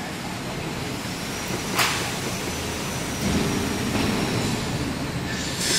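Steady factory workshop noise with a low rumble partway through and one sharp clack about two seconds in, while a plastic cable-carrier chain is handled on a welding boom.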